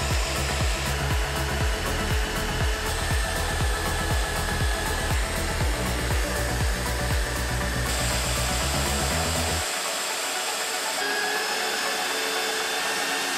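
Evolution magnetic drill's motor whirring steadily as it bores through clamped steel plates, under background music with a steady beat whose bass drops out about ten seconds in.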